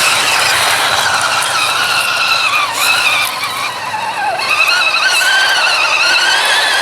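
Electric motor and geartrain of an Axial SCX10 1/10 scale RC truck whining, the pitch wavering as it works under load, dipping twice in the middle and then climbing again.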